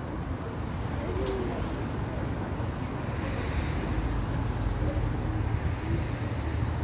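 Wind buffeting the microphone in a steady low rumble, over the hiss of street traffic, with a brief swell of hiss about three seconds in.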